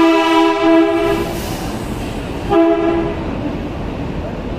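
Train horn sounding two blasts, a long one of about a second and then a short one, over the steady rumble of the train running.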